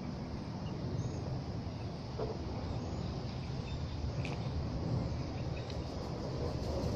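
Outdoor ambience: a steady low rumble with a few faint, brief bird chirps scattered through it.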